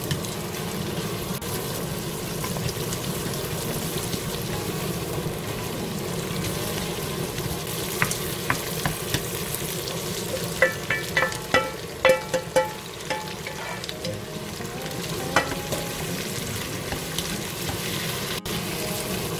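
Diced onion, pork and cabbage sizzling as they are stir-fried with a wooden spatula in a nonstick frying pan. A quick run of clinks and knocks against the pan comes about halfway through.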